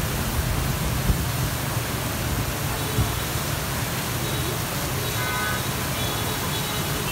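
Heavy tropical downpour hissing steadily, with gusting wind rumbling against the microphone.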